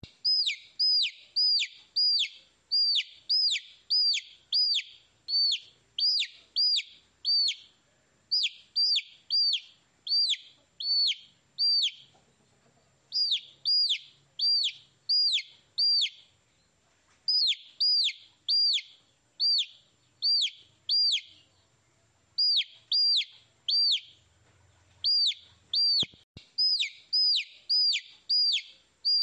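Baby chick peeping: loud, evenly spaced peeps, about two a second, each sliding down in pitch. They come in runs broken by short pauses.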